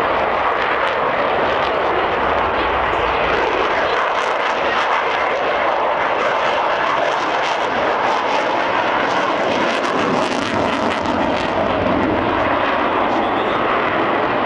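Sukhoi Su-35 fighter's twin turbofan engines giving a loud, steady rush of jet noise as it flies aerobatics.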